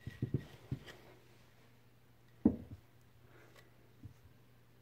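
A few soft knocks as turned wooden pepper mill bodies are handled and set down on a cloth-covered table: a small cluster in the first second, the loudest single knock about halfway through, and a faint one near the end.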